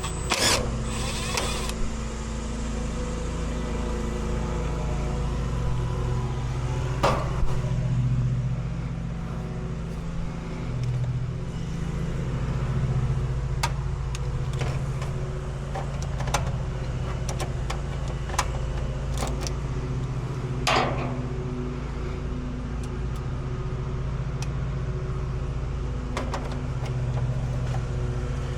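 A steady low mechanical hum, with a few sharp clicks or knocks scattered through it.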